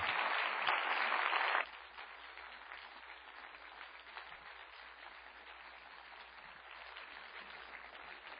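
Audience applauding. About one and a half seconds in the applause drops abruptly to a much fainter level, where the clapping continues thinly over a low hum.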